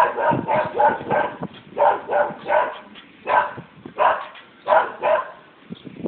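Dogs barking over and over: quick runs of sharp barks, spacing out and stopping near the end.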